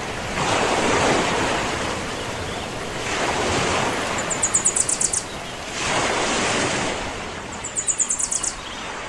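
Sea waves washing in slow swells, with two short, very high rapid trills, one about halfway through and one near the end.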